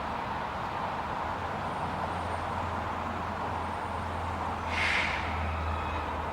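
EP07 electric locomotive running with a steady low hum, with a short hiss about five seconds in.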